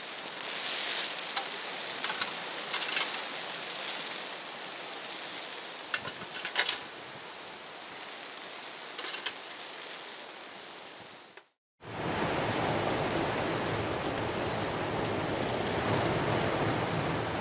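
Quiet outdoor ambience with scattered light clinks and knocks of garden chairs being handled. After a brief dropout about eleven seconds in, a louder steady rush of wind and sea surf takes over.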